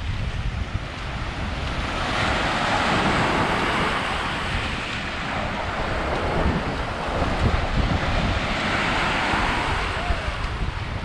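Small waves breaking and washing up and back over the sand at the water's edge, swelling about two seconds in and again near the end, with wind buffeting the microphone as a steady low rumble.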